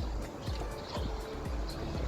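Background music with held tones over a low, regular beat.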